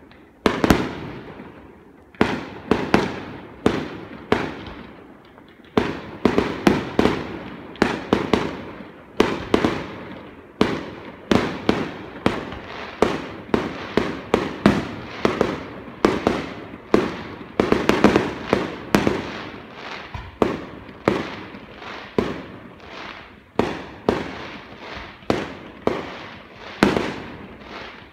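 Aerial firework shells bursting in quick succession, about one to two sharp bangs a second, each followed by a fading rumble.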